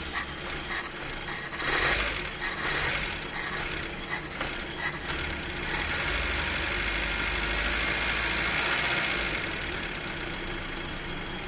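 Car engine running just after being started, cold and with its ignition timing not yet set after a timing belt refit: uneven for the first few seconds, then steadier and louder before settling to a quieter, even idle near the end.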